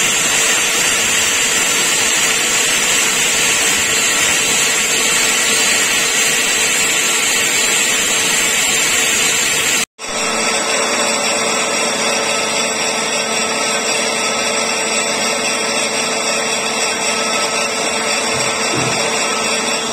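Metal lathe cutting a large copper-alloy ring: a steady whine from the machine over the hiss of the cut and chips showering off. A momentary dropout just before the middle, after which the boring bar cutting the ring's bore runs on with a clearer whine.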